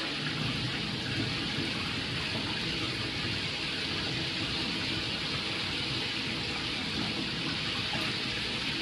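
Shower water running in a steady rush, spraying over a leg and foot and splashing into a jacuzzi tub.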